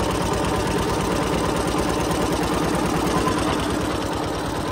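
Fishing boat's engine running slowly with a steady, evenly pulsing beat while the gill net is paid out.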